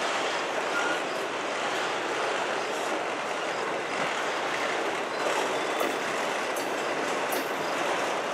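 Freight train of autorack cars rolling past, a steady noise of steel wheels running on the rails.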